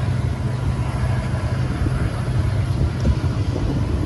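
A halted passenger train's diesel engine idling, a steady low hum.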